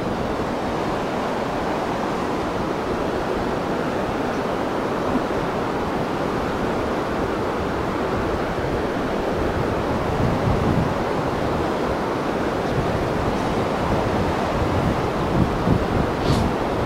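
Steady rushing of the flood-swollen New River running high and fast below the bridge, with wind buffeting the microphone now and then, most in the second half.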